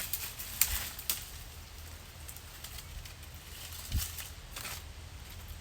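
A few scattered knocks and rustling, as pieces of cut wood are handled and set down: one sharp knock about half a second in, another a second in, and a duller thud about four seconds in.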